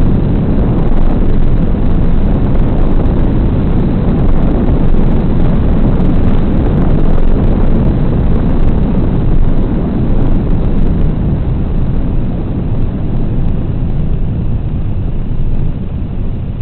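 Wind rushing over the onboard FPV camera microphone of a Stratosurfer foam RC plane gliding in with its electric motor drawing almost no current. The rush eases off near the end as the plane slows for landing.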